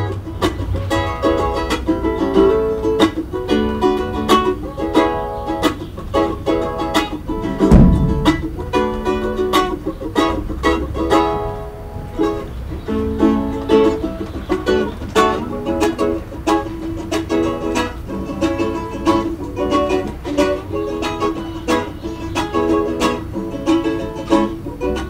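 Ukulele being strummed and picked, a steady run of chords and melody notes. There is one loud thump about eight seconds in.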